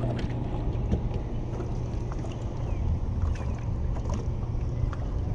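Wind rumbling on the microphone aboard a small fishing boat, over a steady low hum, with a few faint light clicks.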